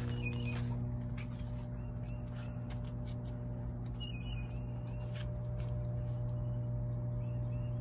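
Commercial air-conditioning equipment running with a steady low hum. Short bird chirps and a few light clicks are heard over it.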